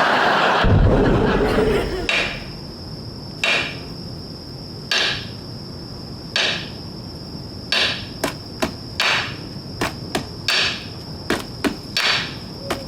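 Studio audience laughing, then a run of hammer blows on a stuck lug nut (percussive loosening). The blows come about every second and a half at first, then faster, in pairs and triples, near the end.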